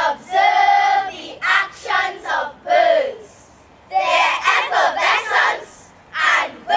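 A chorus of young voices calling out together in unison, in short drawn-out phrases with sliding pitch and brief pauses between them.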